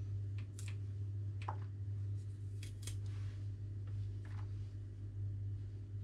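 A small kitchen knife cutting through the root ends of watercress stems: about five short, separate snips over a steady low hum.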